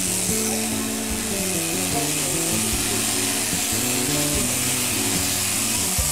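Electric sheep-shearing handpiece running steadily through a sheep's fleece, a constant high buzz, with music and a stepping bass line playing along with it.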